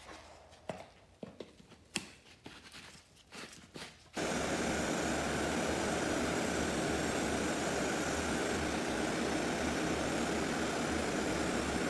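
A few clicks and knocks as a powder coating gun is handled, then, about four seconds in, a sudden steady hiss of compressed air as the Red Line EZ50 gun starts spraying red powder, holding level to the end.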